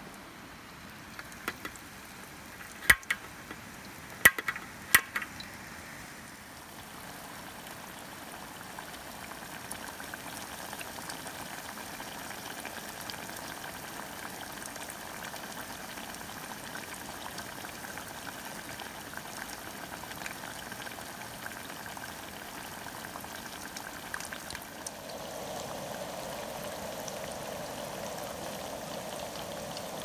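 Hot oil sizzling and bubbling steadily as chicken deep-fries in a small pot on a camping gas stove. A few sharp clicks stand out about three to five seconds in, and the sizzle shifts in tone near the end.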